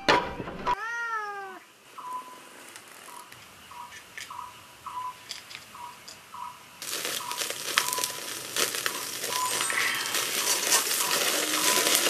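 A cat meows once, about a second in. From about seven seconds, pork belly sizzles and the fire crackles on a wire grill over a camp stove as flames flare up through the grill.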